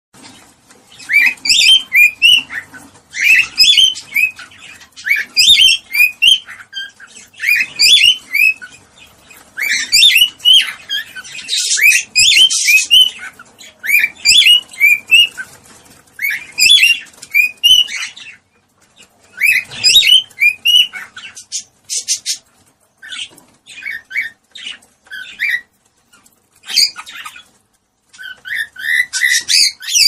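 Cockatiels chirping and warbling in repeated bursts of short up-and-down notes, with a harsher, noisier stretch about twelve seconds in: cockatiel mating calls.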